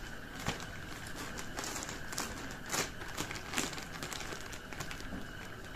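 Clear plastic bag crinkling as hands work its top edge closed, with irregular sharp crackles.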